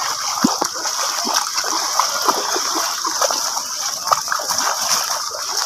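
Feet wading through shin-deep floodwater: a steady run of irregular splashes and sloshing.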